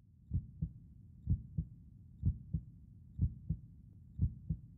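Slow, steady human heartbeat: a lub-dub double thump about once a second, five beats in all.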